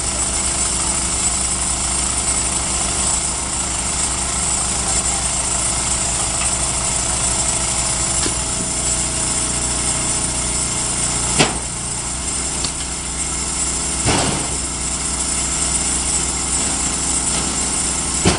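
Engine running steadily, its note shifting a little about midway. Three sharp knocks come in the second half as the rail wagon wheelset is handled, the last as it comes down onto the rails.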